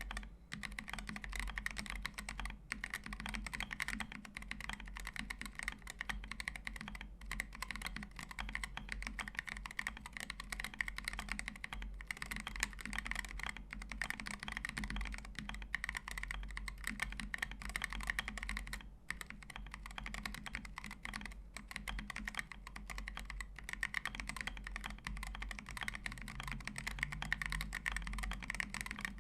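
Continuous typing on a Preonic ortholinear mechanical keyboard with lubed Boba U4T tactile switches, an aluminium plate, plate and case foam, and KAT Lich keycaps: a dense run of deep keystroke clacks, broken by a few brief pauses.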